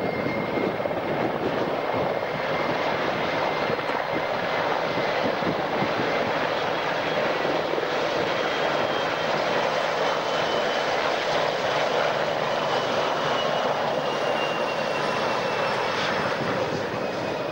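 A formation of helicopters flying past low, giving a steady, loud rush of turbine and rotor noise. Through the middle a thin whine slowly falls in pitch as they go by.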